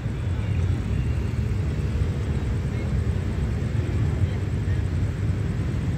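Steady low rumble of road traffic, with a crowd of motorbikes idling at a closed level crossing.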